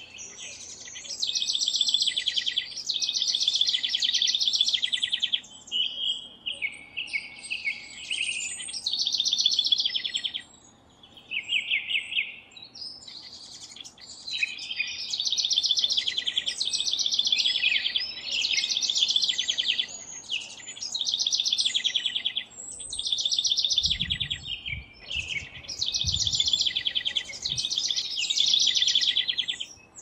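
House wren singing its rich, gurgling song over and over, in rapid, stuttering phrases a couple of seconds long with short pauses between them. A few low thumps come about three quarters of the way through.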